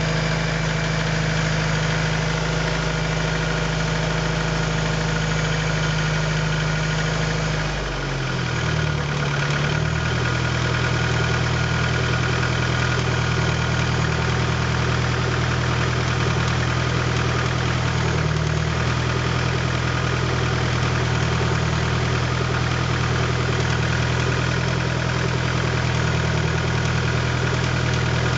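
Honda B20A inline-four with forged pistons idling cold, with the knock of piston slap on a cold start. About eight seconds in the idle wavers and drops, then holds steady at a lower speed.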